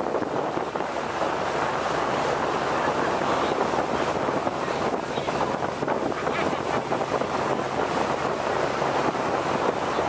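Wind buffeting the microphone at the bow of a moving wooden longtail boat, with the boat's engine running steadily underneath and water rushing along the hull.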